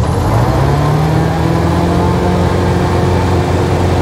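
Robin DR400's Lycoming engine and propeller opened up to full power for the take-off run, heard inside the cabin. The engine note rises over about the first second, then holds steady.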